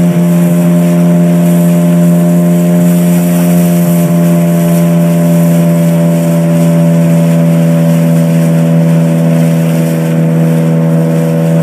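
Boat motor running at a steady, constant throttle, one unchanging hum, with a hiss of wind and water rush over it.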